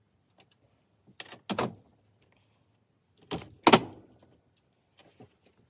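Hand tools working on electrical wire: two short clusters of sharp clacks with a brief squeak, about two seconds apart.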